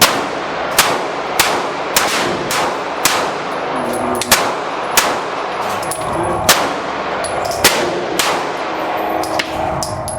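Gunshots at a shooting range: more than a dozen sharp reports in an uneven run, about one to two a second, some close together, each dying away quickly.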